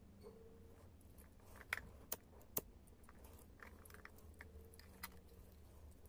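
Quiet hand-work noises: three sharp clicks in quick succession about two seconds in, then a few faint ticks and rustles, from hands working paracord and a disposable lighter.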